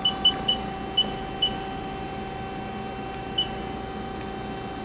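Six short, high keypad beeps from the Haas CNC control as keys are pressed, unevenly spaced, over the steady hum of the Haas ST-30 turning centre standing at idle with its spindle stopped.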